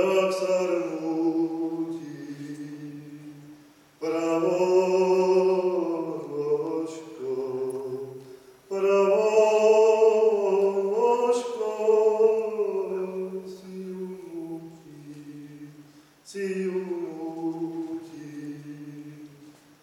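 A man singing a Slovak folk song unaccompanied, in long, drawn-out phrases that each start loud and fade away. New phrases begin about 4, 9 and 16 seconds in.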